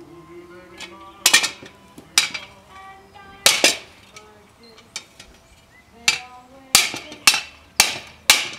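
Hand hammer striking a steel punch to dimple a domed steel disc resting on a wooden stump. There are about nine sharp metallic strikes at an uneven pace, some ringing briefly.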